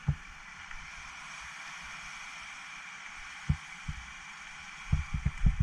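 Steady wash of small waves breaking on a rocky shore, with short low thumps right at the start, twice about three and a half seconds in, and in a quick cluster near the end.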